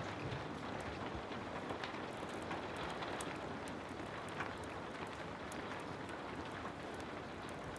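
Heavy rain falling steadily, with many scattered sharp ticks and crackles through it, as from a wood fire burning in a fireplace.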